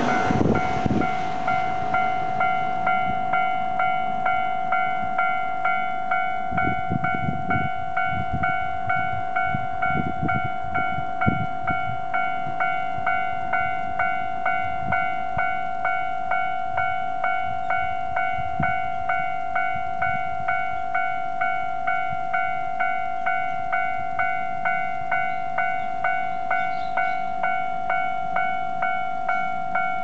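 Japanese railway level-crossing warning bell ringing: an electronic ding that repeats evenly a little more than once a second, warning that a train is coming. A car drives across the tracks at the very start.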